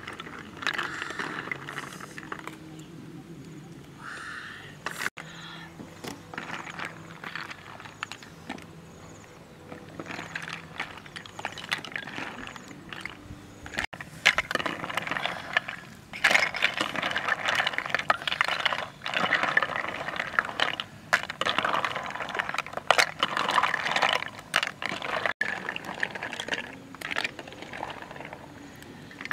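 Snail shells clattering and scraping against a metal wok and spatula as cooked snails are stirred and scooped out, busiest in the second half.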